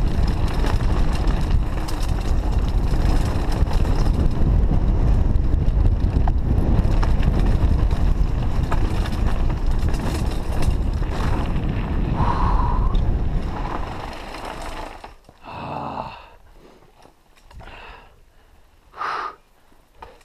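Wind rushing over the microphone, mixed with the rattle and clatter of a mountain bike riding fast down a stony trail. It dies away about three-quarters of the way through as the bike slows. A few short, heavy breaths from the rider follow.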